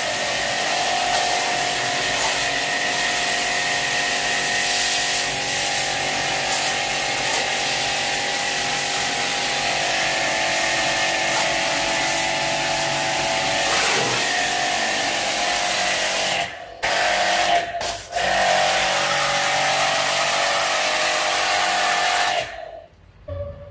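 Small electric pressure-washer pump running steadily, its water jet spraying an air conditioner indoor unit's blower wheel during a deep clean. The spray breaks off briefly twice past the middle and stops near the end.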